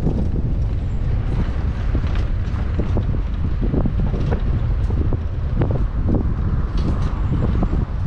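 Wind buffeting the microphone over the low rumble of a boat being towed on its trailer, with frequent short knocks and rattles.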